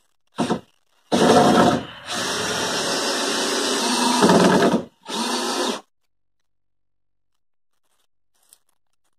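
Handheld power drill driving screws through 2x4 boards into the wooden underside of a porch. There is a brief burst just after the start, then nearly four seconds of steady running as a screw goes in, and a shorter run about five seconds in.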